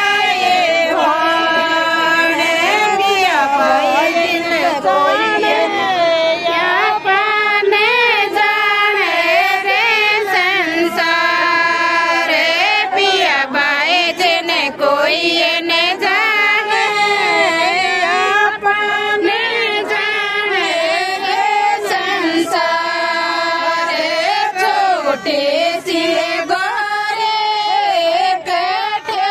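A group of women singing a Rajasthani bhat geet together, the folk song sung for the bhat (mayra) wedding rite, in one unbroken stretch of high voices.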